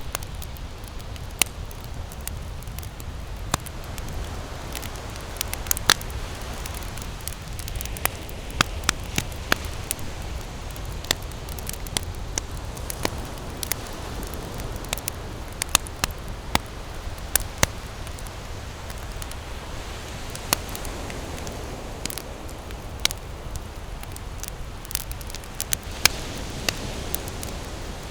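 Wood campfire burning and crackling, with irregular sharp pops scattered throughout over a steady low rumble.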